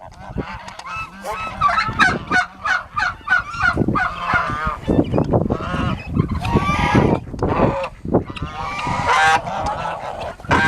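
Domestic geese honking, many short calls in quick succession and overlapping one another.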